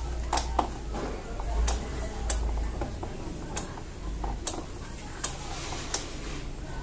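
Sharp plastic clicks and taps, about nine at irregular intervals, as the scooter's front fairing panel beside the turn-signal light is pressed back into place, over a low steady hum.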